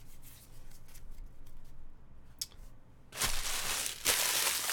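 Trading cards flicking softly as a stack is thumbed through. From about three seconds in, a loud crinkling of a card pack's wrapper being handled.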